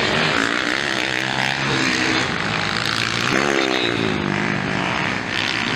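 Motocross dirt bike engines revving across the track, their pitch rising and falling, with one engine climbing sharply a little past halfway.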